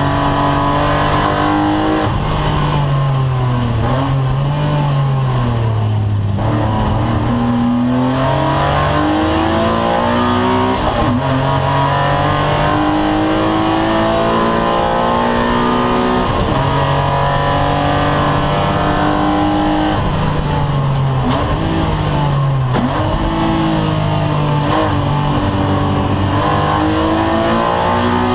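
A 2-litre BMW race car's engine heard from inside the cabin, running hard at high revs. Its pitch holds steady for long stretches and twice drops and swings back up with gear changes, about two seconds in and again about twenty seconds in.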